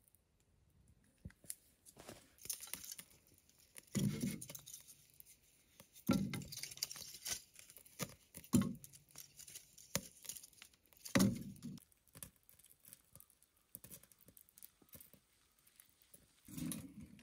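Small fire in a wood stove crackling faintly as an instant fire-starter cup and split kindling catch, with a few dull thumps at irregular intervals.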